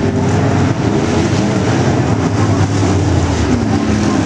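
Several IMCA Modified race cars' V8 engines running together on a dirt oval, their pitches overlapping and rising and falling as the cars circle.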